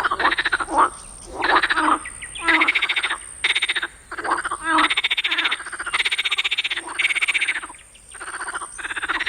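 Chorus of swamp frogs calling: loud, rapidly pulsed croaking calls, each about half a second to a second long, following one another and overlapping from several frogs. A steady high-pitched tone runs underneath.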